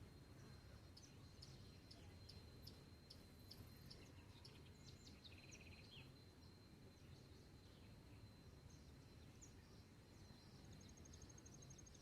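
Faint dawn birdsong: scattered short high chirps over a thin, steady high whine, with a fast, high pulsing trill starting near the end, all over a low background rumble.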